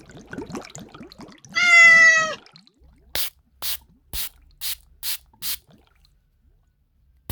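Faint gurgling or crackling, then one loud drawn-out pitched cry lasting under a second, then six short hissing bursts about half a second apart.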